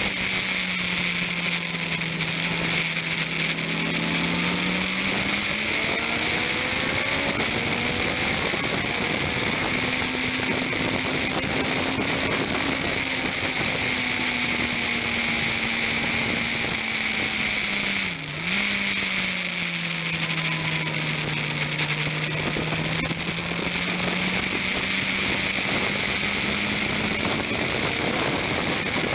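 Racing motorcycle engine heard from an onboard camera, its pitch rising and falling through gear changes, with a brief throttle-off dip about 18 seconds in. A steady rush of wind and rain spray runs under it.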